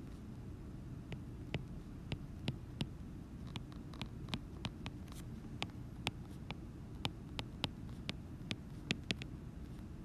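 A stylus tip tapping and ticking on a tablet's glass screen while handwriting, giving irregular light clicks a few times a second. A steady low hum runs under it.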